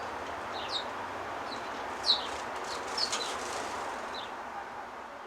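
Sparrows chirping: short, scattered chirps, the loudest about two seconds in, over a steady background hiss.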